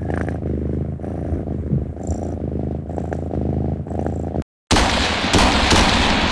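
A cat purring steadily for about four seconds, then a short silence and a sudden loud noisy blast that slowly dies away.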